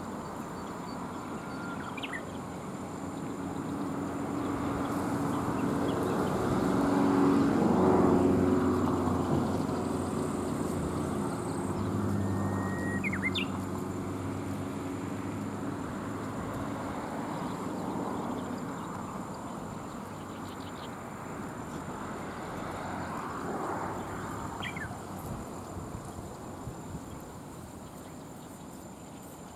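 A motor vehicle passes, its engine hum swelling to its loudest about eight seconds in and then fading slowly. A bird gives a short, sharp call three times, spaced about ten seconds apart. A thin, steady high whine runs throughout.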